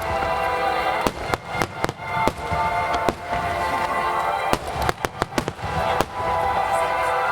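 Aerial fireworks shells bursting again and again over music, with a quick run of bangs about five seconds in.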